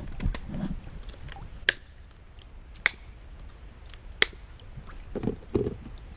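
A few sharp clicks, about a second apart, with duller low knocks near the start and near the end.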